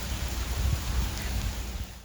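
Steady rain falling, with irregular low rumbles underneath; it fades out at the very end.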